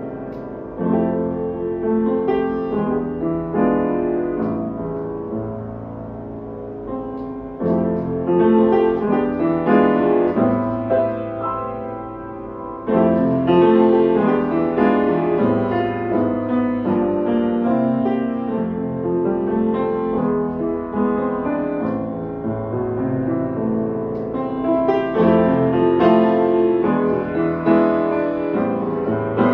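Upright piano played solo in an improvised piece of chords and melody, with louder phrases entering about 8 and 13 seconds in.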